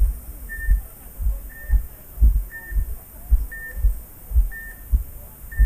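A short high electronic beep repeating about once a second, with a pair of dull low thumps in each cycle like a heartbeat.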